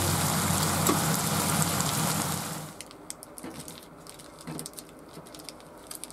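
Itadori shoots, carrots and shimeji mushrooms cooking in a pan, a steady sizzling hiss that cuts off about three seconds in. After it come faint crinkles and small clicks of a plastic zipper bag being handled.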